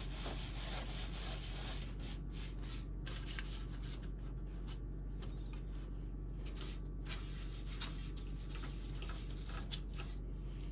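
A clean cloth rag wiping down a computer case part: soft, irregular rubbing and scuffing, over a steady low hum.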